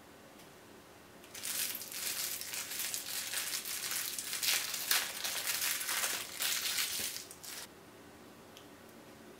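Thin clear plastic wrapper crinkling and crackling as it is pulled off a small mochi squishy toy by hand. It starts about a second in and stops near the end.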